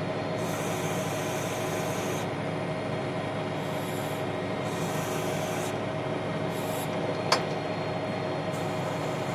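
Tractor engine running steadily while driving a PTO-powered backhoe hydraulic system: an even mechanical drone with a few held tones, and one sharp click about seven seconds in.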